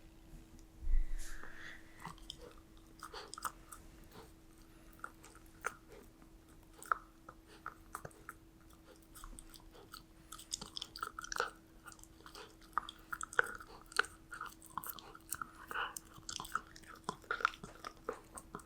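A golden retriever puppy chewing and crunching a treat, with irregular crunches that come thicker in the second half. A low thump sounds about a second in.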